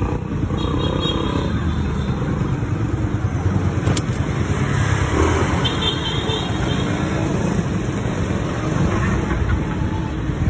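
Steady engine rumble and road noise of a vehicle driving through city street traffic, heard from on board.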